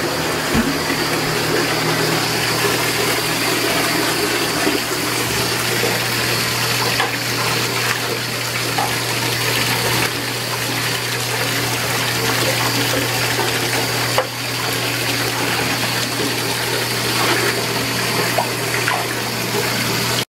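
Water running steadily from a bathtub faucet into the tub, with a steady low hum underneath.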